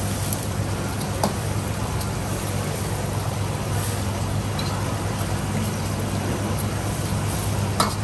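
Steady roar of kitchen machinery with a low hum, and a few light clinks about a second in and near the end.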